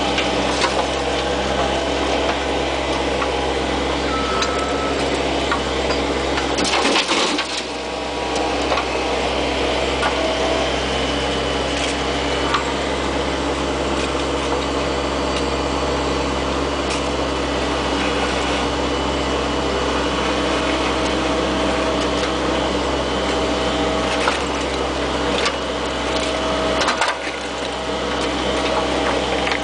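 Bobcat 430 ZHS mini excavator's diesel engine running steadily under work, with scattered knocks and scraping from the machine as it digs. The engine note dips briefly twice, about seven seconds in and near the end.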